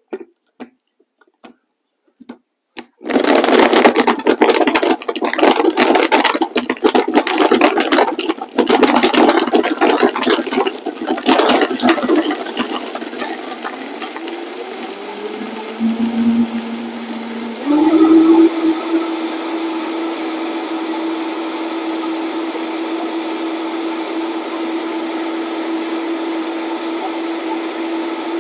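A countertop blender starts about three seconds in and crushes ice cubes with spinach, a loud, irregular grinding rattle. After about ten seconds the ice is broken down and the motor runs more smoothly, then steps up to a higher speed with a steady whine as it purées everything into a frosty slush.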